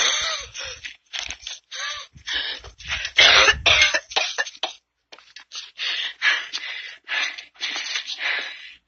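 A person coughing over and over, more than a dozen coughs in quick succession with a brief pause about five seconds in.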